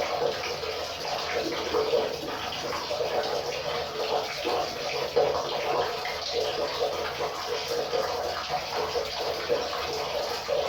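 River water running steadily over rocks, a continuous splashing and gurgling rush with many small bubbling flickers.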